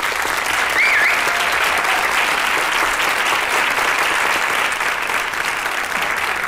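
Audience applauding steadily, with one brief high-pitched call from the crowd about a second in.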